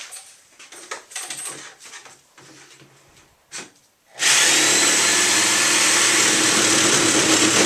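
A small electric motor starts suddenly about four seconds in and runs loudly and steadily with a whirring hum, after a few light knocks and handling sounds.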